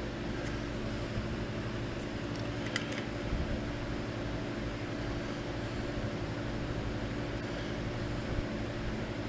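Steady machine hum, with a faint click about three seconds in.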